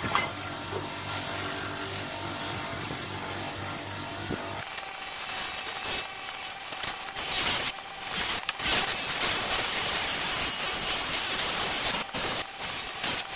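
Bench grinder running with its motor humming while the steel blade of a draw knife is held against the spinning abrasive wheel. About four and a half seconds in, the sound turns abruptly to a steady, hissing grind of steel on the wheel, broken by a few short pauses as the blade is lifted and repositioned.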